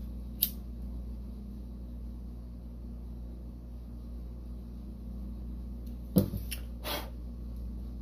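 Handling noise from working shrink tubing onto a soldered wire splice: a sharp click about half a second in, then a louder click followed by two lighter ones around six to seven seconds, over a steady low hum.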